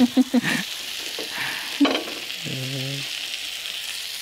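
Oil sizzling steadily in a frying pan, with a single sharp clink about two seconds in.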